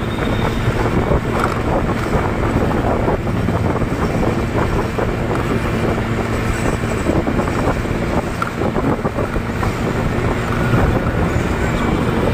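A motor scooter or motorbike running steadily at riding speed, with a constant low engine hum under heavy wind buffeting on the microphone.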